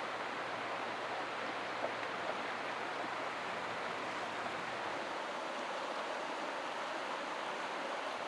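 Shallow rocky stream running over stones: a steady rush of water.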